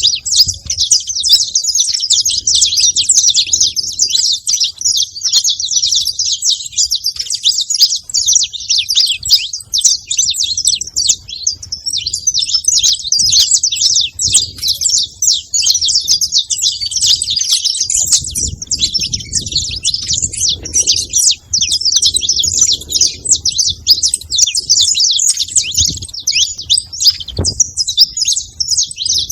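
Saffron finch chirping in a fast, unbroken stream of high notes.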